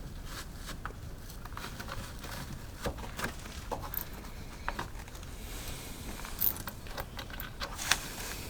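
Scattered light clicks, taps and scrapes of hand work on a car's lower body trim and side skirt, over a low steady hum.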